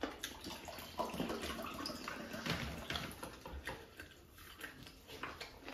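Wet, squishy eating sounds: curry-soaked rice squeezed and mixed by hand on a metal platter, and mouthfuls being eaten, with many small irregular clicks and squelches.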